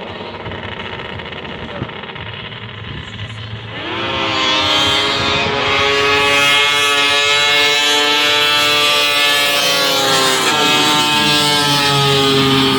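Snowmobile engine running at lower revs, then revving up about four seconds in and holding high revs, a steady high whine with a brief dip near the end.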